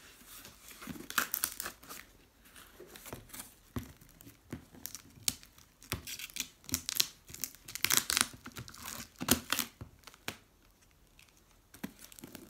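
Packaging being worked open by hand: irregular crinkling, rustling and tearing, with louder bursts of crackle about 8 to 9 seconds in.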